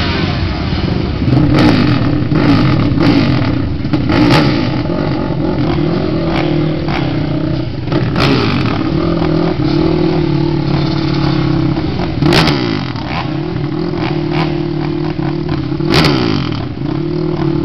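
Quad ATV engines idling, with several quick throttle revs that rise and fall, along with a few sharp cracks.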